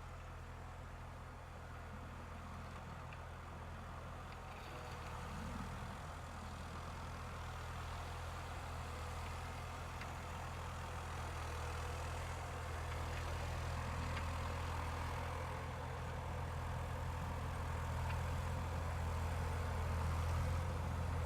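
New Holland LS180 skid steer's diesel engine running steadily just above idle, its throttle frozen there, as it plows snow at a crawl. The hum grows gradually louder.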